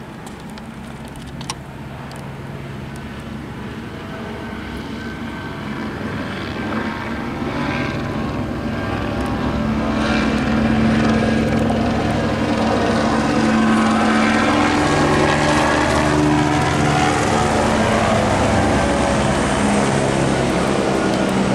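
Police helicopter's rotor and engine growing steadily louder over about ten seconds as it comes close overhead, then holding at a steady level.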